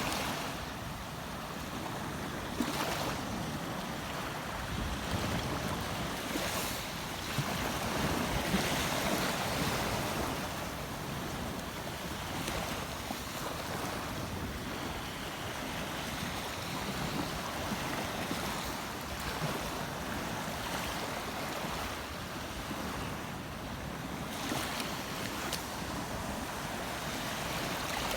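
Steady rush of moving water, a continuous even noise that swells slightly about eight seconds in.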